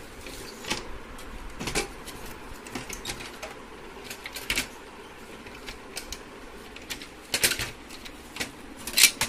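Irregular clicks and knocks of the plastic and metal parts of an HP LaserJet MFP M1136 printer as they are handled and pried apart to free an internal unit, with a few louder knocks among the light clatter.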